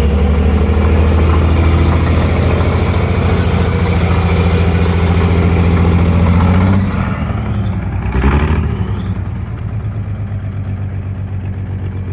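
Hyster B70 forklift's V6 engine running fast and loud, then dropping back to a lower, even idle about seven seconds in. A brief burst of noise comes about a second later.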